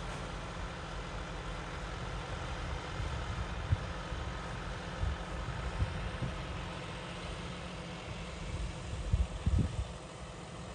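John Deere tractor's diesel engine running steadily while it pulls a super seeder sowing wheat, heard from a distance as a low hum. A few low thuds near the end.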